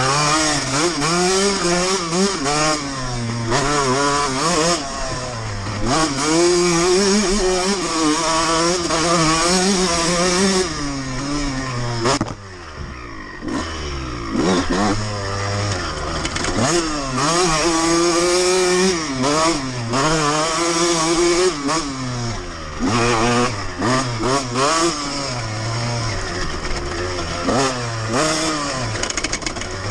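2002 Honda CR125R single-cylinder two-stroke engine revving up and falling off over and over as the bike is ridden hard through the trail. The throttle closes and the engine note drops briefly about twelve seconds in, then it picks up again.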